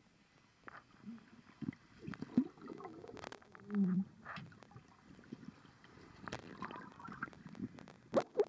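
Underwater gurgling and sloshing of water heard through a submerged camera, muffled, with a few sharp knocks and clicks scattered through it.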